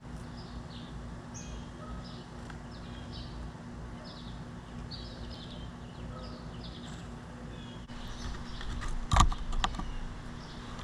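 Small birds chirping, short high notes one or two a second, over a steady low hum. About eight seconds in, sharp knocks and scratching take over, the loudest a little after nine seconds, as a gray squirrel clambers onto the wooden tray feeder with its claws.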